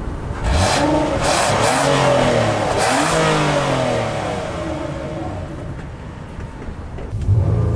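A 2016 Nissan Murano's 3.5-litre naturally aspirated V6, heard at the exhaust tailpipe, is revved repeatedly from idle. The pitch rises and falls with each blip, eases back toward idle about six seconds in, and climbs again near the end.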